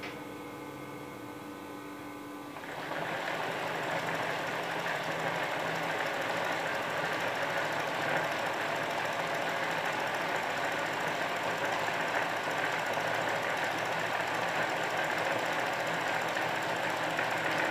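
Juki sewing machine stitching fast and steadily during free-motion machine embroidery, starting up about three seconds in after a steady hum.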